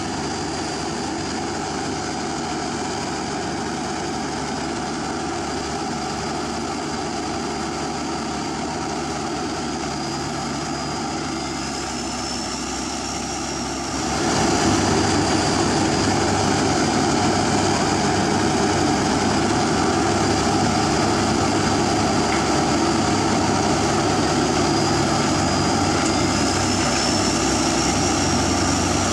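Komatsu PC200 hydraulic excavator's diesel engine running steadily under working load, with a thin high whine that rises a little in pitch twice. It gets louder about halfway through.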